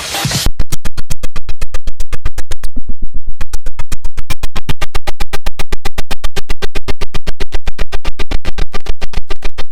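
Very loud electronic music built on a rapid stuttering pulse, about seven hits a second, with a brief drop-out a little under three seconds in.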